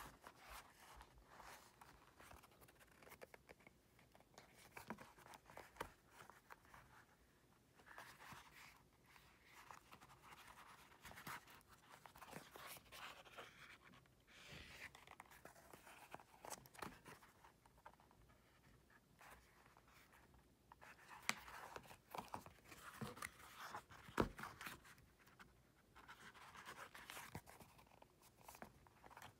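Faint, irregular scratching and rustling of a needle and waxed thread being drawn in and out through pre-punched holes in leather during hand-stitching, with small clicks as the piece is handled.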